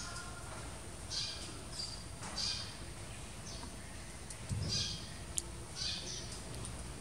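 Short high chirps repeated about once a second, with a soft thud about four and a half seconds in and a sharp click just after.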